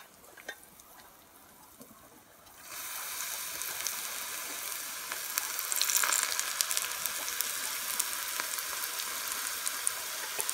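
Hot oil poured through a wire strainer onto crushed dried chilies and garlic, sizzling as it hits. The oil is hot enough to fry the chili on its own. The sizzle starts suddenly a little under three seconds in and carries on steadily with scattered small crackles.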